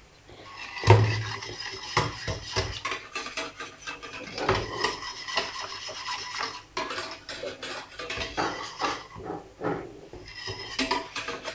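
A wire whisk beating a milky custard mixture in a stainless steel saucepan. Its wires rattle and scrape quickly against the pot's sides and base, starting with a knock about a second in.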